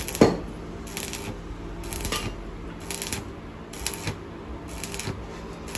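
Welding work on a boat's exhaust pipe: short crackling bursts and metallic clicks come every half second to a second, with one sharp metal knock about a quarter second in.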